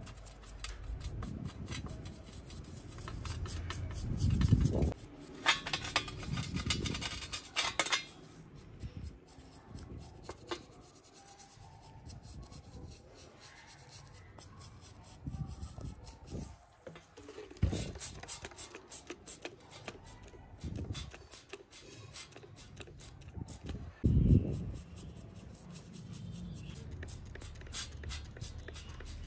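Small stiff brush scrubbing the corroded case of a diamond-set Franck Muller V32 watch: quick scratchy bristle strokes on metal, densest a few seconds in, with a few dull knocks as the case and steel dish are handled.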